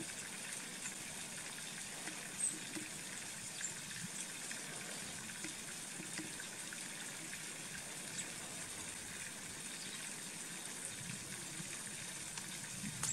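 Steady trickling of running water, with a few faint, brief high ticks over it.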